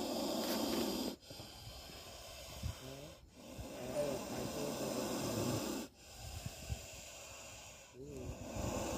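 A cobra hissing, a breathy noisy sound in stretches of a second or two, broken off abruptly several times.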